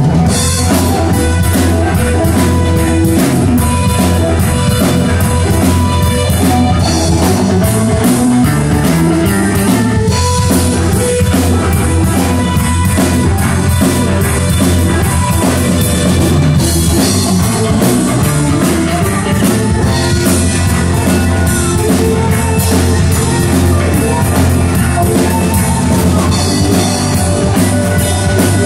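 Live rock band playing, with electric guitar, bass guitar and drum kit, loud and steady.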